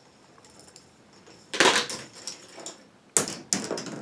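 A K'NEX ball rolling down a plastic K'NEX track, faintly rattling, with a sharp clatter about a second and a half in and two quick knocks near the end.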